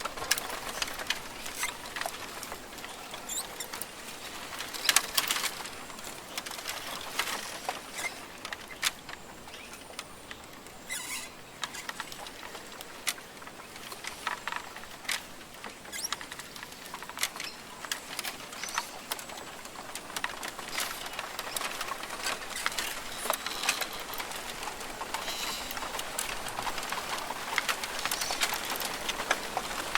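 Rainforest ambience: a steady hiss, dotted with many short ticks and taps and a few brief bird calls, growing slightly louder toward the end.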